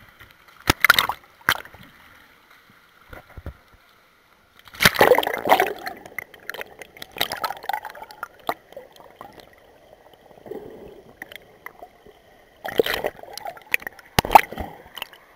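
Pool water splashing and sloshing around a camera that dips in and out of the water, in loud bursts about a second in, around five seconds in and twice near the end, with quieter gurgling between.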